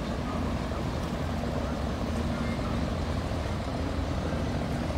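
A boat engine running with a steady low rumble and a faint steady hum over it.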